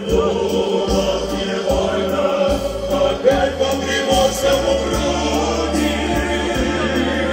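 Choir of navy sailors singing a song, amplified through microphones, with sustained notes that run on without a break.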